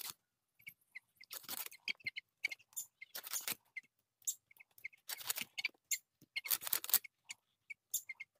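A boti (floor-mounted curved kitchen blade) cutting through a snakehead fish: several rough crunching, rasping strokes as the scaly body is pushed against the blade and sliced through into large pieces, with small clicks in between.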